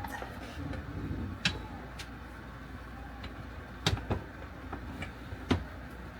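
Irregular sharp clicks and knocks, about five in all, from computer hardware and cables being handled and plugged in, over a low steady hum.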